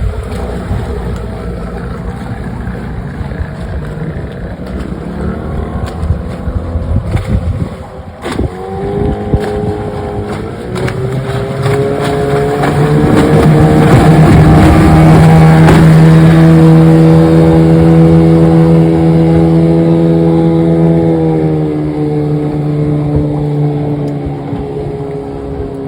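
1996 Johnson 15 HP two-stroke outboard running a boat on the water, its thermostat newly replaced. About a third of the way in, the engine note rises in pitch and grows louder. It is loudest and steady past the middle, then drops slightly in pitch and fades a little near the end.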